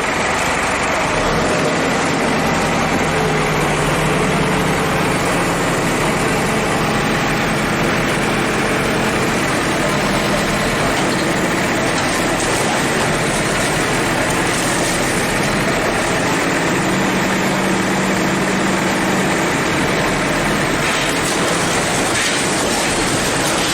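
Heavy diesel engine of a bulldozer running steadily under a dense, continuous noise.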